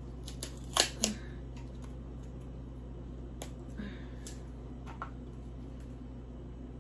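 A few sharp clicks and taps from handling utensils and food containers at a table: two loud ones close together about a second in, then three fainter ticks, over a steady low hum.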